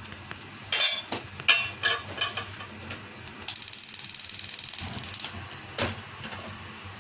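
Several sharp clicks and knocks at a large aluminium pot of cooking oil heating on the stove, then a hiss lasting nearly two seconds, and one more knock near the end.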